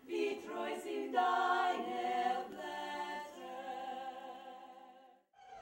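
Four women singing a holiday song medley in harmony, ending on a long held chord that fades and cuts off shortly before the end.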